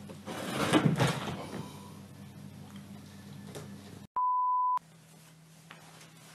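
A short burst of noise about a second in, then a single steady high beep lasting about half a second about four seconds in, a pure tone edited in between clips.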